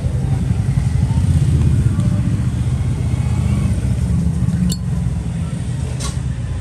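Steady low rumble of passing motor traffic, with two short sharp clicks, the first past the middle and the second near the end.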